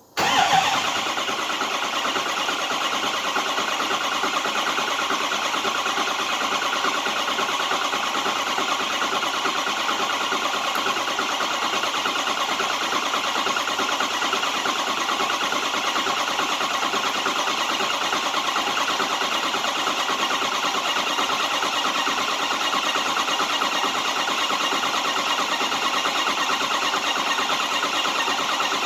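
Ford 6.0 Power Stroke V8 turbo-diesel being cranked over by its starter, cutting in abruptly and turning at an even, rapid beat without catching: the crank-no-start fault.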